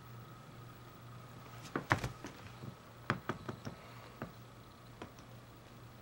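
A series of light knocks and clicks, as of objects being handled: a quick cluster about two seconds in, another about three seconds in, then a couple of single ones. A steady low hum runs underneath.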